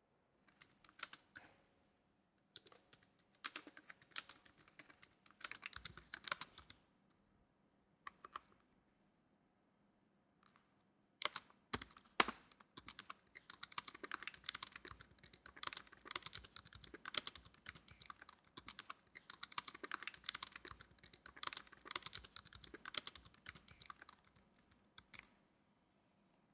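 Typing on a laptop keyboard: quick runs of key clicks broken by short pauses, a few heavier keystrokes about eleven seconds in, then near-continuous typing for most of the second half.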